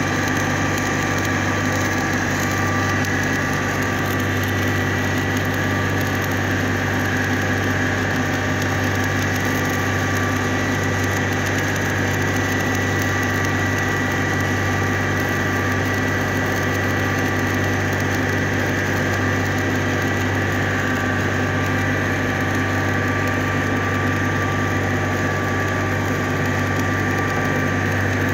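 Stick-welding arc crackling and sizzling steadily as a rod is run along a steel elbow-to-pipe joint, over a constant machine hum.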